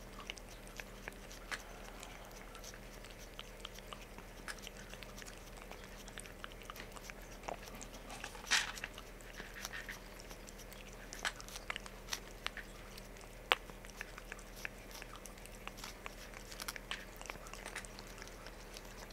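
Abyssinian cat licking and biting at a squeeze-tube paste treat held to its mouth: irregular small wet smacks and clicks of tongue and teeth, a few sharper than the rest.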